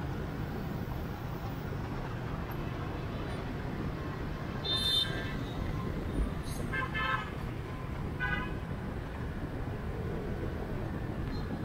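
Motorbike traffic running steadily, with three short horn beeps about five, seven and eight seconds in.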